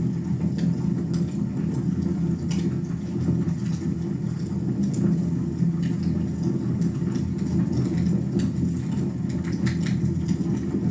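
Wood fire burning in a fireplace: a steady low roar with scattered sharp crackles and pops.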